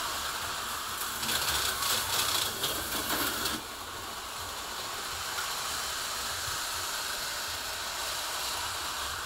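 HO-scale slot cars and a model train running on the layout: small electric motors and wheels rattling along the track. The rattle is louder and busier at first, then drops to a steadier, quieter running noise about three and a half seconds in.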